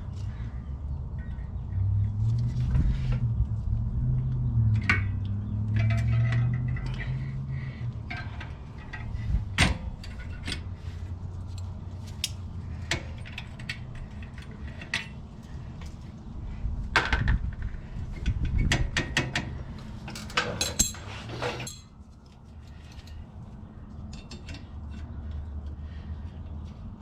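Scattered metallic clinks and clicks of small parking-brake springs and spring cups being worked off the rear brake hub of an air-cooled Porsche 911. A low hum sits underneath for the first several seconds.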